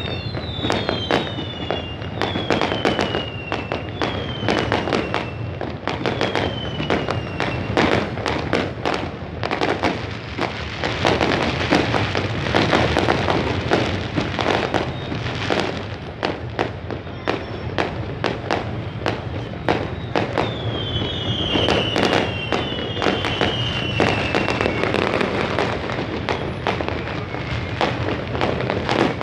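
Fireworks going off overhead in a dense, irregular stream of bangs and crackles. Sharp cracks land several times a second, over a continuous rumbling haze that swells twice.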